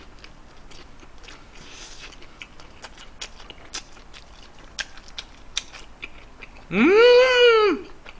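Close-up chewing of a mouthful of soft steamed bun and stir-fried pepper pork, with many small wet mouth clicks. About seven seconds in comes a loud, long hum of pleasure, about a second long, that rises and then falls in pitch.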